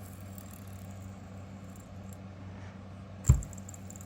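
Copper-and-brass AlumaFX Synergy fidget spinner spinning in the hand with a faint rattle and judder, which the owner is pretty sure comes from a button hitting the body. A single sharp knock a little over three seconds in is the loudest sound.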